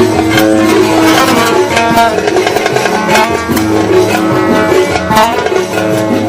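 Live instrumental music: a plucked string instrument playing a melody, with sharp percussive strikes about twice a second.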